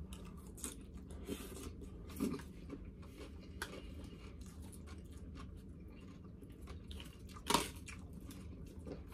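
A person chewing a mouthful of salad, with small clicks and scrapes of a fork in a plastic takeout bowl. One louder short sound comes about three-quarters of the way through.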